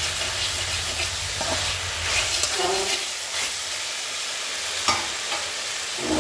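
A spatula stirring and scraping vegetables around a metal kadai, with frying oil sizzling underneath. The scrape strokes come irregularly over a steady sizzle.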